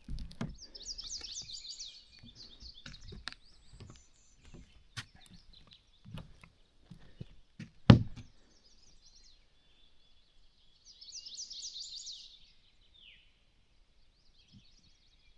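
Songbirds singing: two bursts of rapid high trilling song, about a second in and again about eleven seconds in, followed by a short falling whistle. Scattered knocks and clicks; the loudest is a single thump about eight seconds in.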